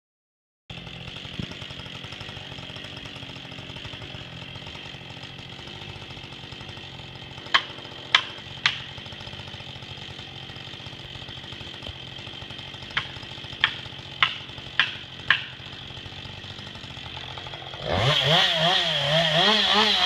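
Chainsaw idling steadily, with sharp knocks in two runs, three and then five, about half a second apart. Near the end the saw is revved up to full throttle, its pitch rising and falling.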